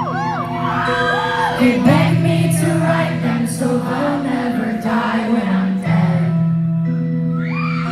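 Loud live electropop performance heard through a phone's microphone in the crowd: a heavy sustained synth bass and layered synths with repeating rising-and-falling glides, and singing without clear words.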